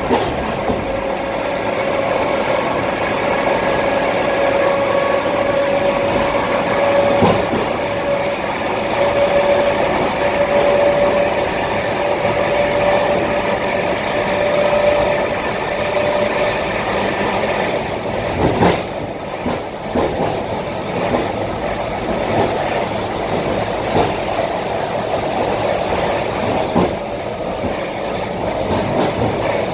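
ET2M electric multiple unit running at speed, heard inside a passenger car: a steady rolling rumble of wheels on rails, with a steady whine that stops about halfway through. A few sharp knocks come through from the running gear.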